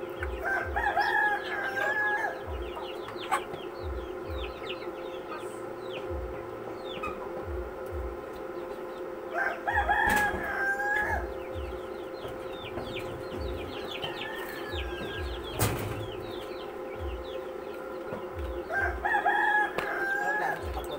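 Rooster crowing three times, about nine seconds apart, over short high chirps that go on throughout.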